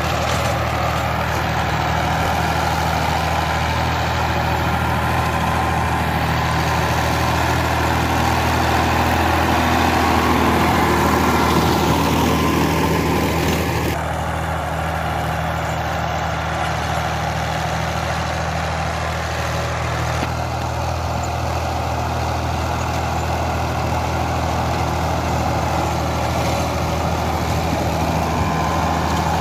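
Swaraj 960 FE tractor's diesel engine running steadily under load, driving a rotary tiller through dry soil. The steady engine note stays constant throughout, and the overall sound shifts abruptly twice, about halfway through and again a few seconds later.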